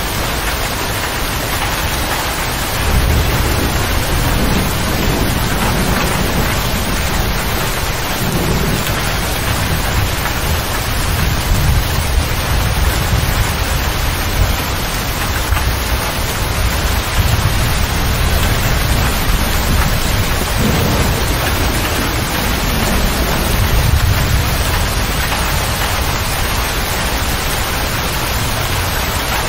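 Steady rain falling on a motor grader's cab roof and windows, heard from inside the cab. Low rolls of thunder swell in about three seconds in and again past the middle.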